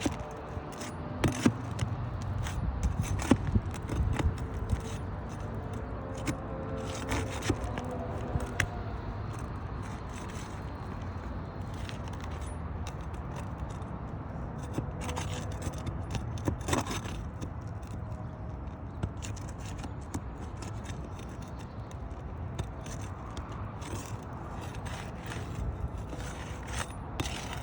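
Roof shingles being scraped and pried loose to break the seal of the shingles above, with scattered sharp clicks and knocks.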